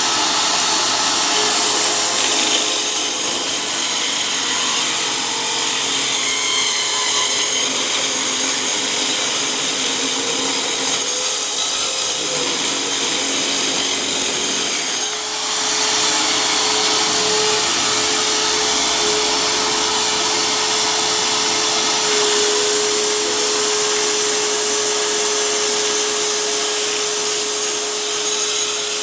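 Hyper Tough 4.5-inch mini circular saw running and sawing with a high whine; the whine breaks off about halfway through, with a brief dip in level, and comes back later.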